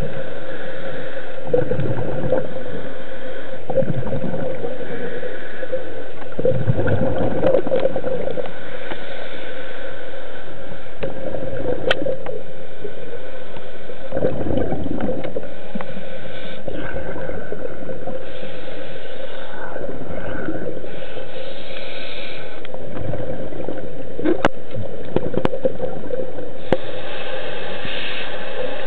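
Muffled underwater noise picked up by a camera below the surface: water rumbling and sloshing in irregular surges over a steady hum, with a few sharp clicks.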